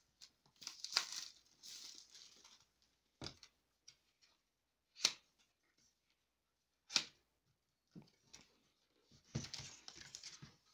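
Paper-card packaging of an Apple Watch Series 4 box being torn open and handled: tearing and rustling early on and again near the end, with three sharp knocks in between as the box is handled on the desk.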